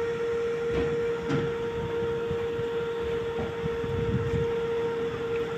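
Steady machinery running: a constant whining hum over a low rumble, with a few faint knocks.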